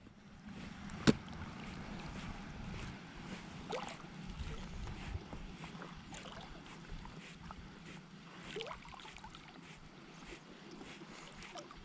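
Small waves lapping and sloshing against a float tube on choppy water, with one sharp click about a second in.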